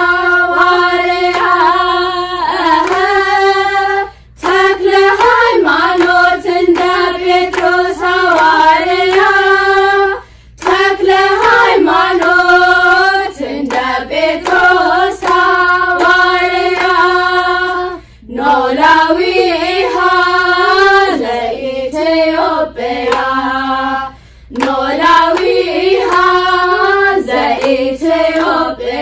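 Girls' choir singing an Ethiopian Orthodox mezmur (hymn) together, in long phrases broken by brief pauses, with hand clapping.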